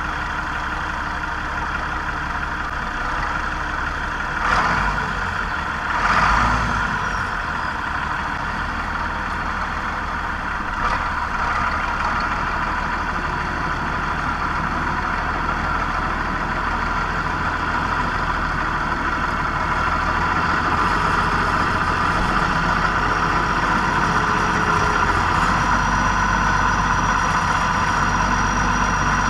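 A tractor engine running steadily at idle, with two brief louder swells about four and six seconds in.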